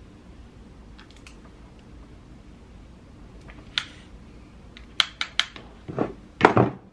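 Clicks and knocks from a handheld flat iron being handled: a single sharp click, a quick run of clicks about a second later as the plates snap open and shut, then a couple of louder knocks near the end as the iron is set down on a table.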